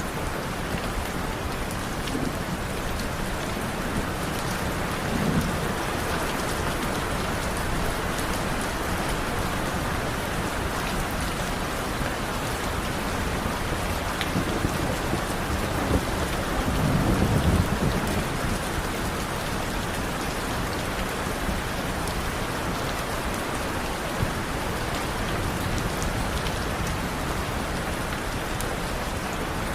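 Steady rain falling, with low thunder rumbling twice: briefly about five seconds in, and louder and longer around seventeen seconds in.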